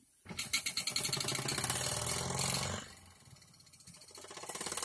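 Mamod model steam traction engine running fast: a quick, even rattling chuff from its cylinder and gearing. It stops about three seconds in and starts again near the end as the control lever is worked.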